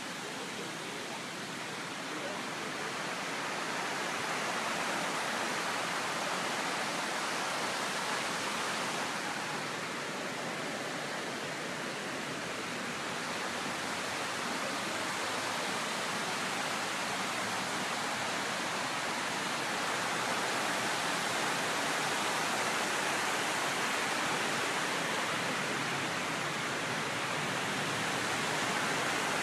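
Steady rushing of the 9/11 Memorial reflecting-pool waterfalls as water pours down the pool walls, growing a little louder about three seconds in.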